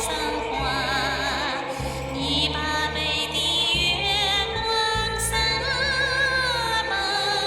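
Female voice singing a sustained, high Tibetan-style melody with wide vibrato and sliding notes over a backing track. It is recorded through a cheap condenser headset microphone, which gives the high notes a slightly electronic edge.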